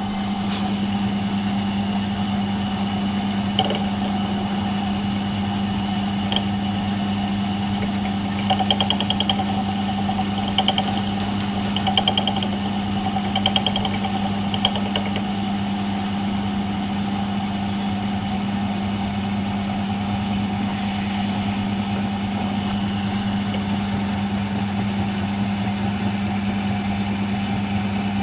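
Milling machine running with a steady motor hum. Partway through there is a short run of brief, ringing rattles.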